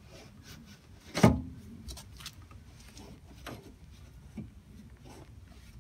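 Door window glass of an NA Mazda Roadster (Miata) being worked up and out of the door, rubbing and scraping in its channels, with one sharp knock about a second in and a few lighter clicks after.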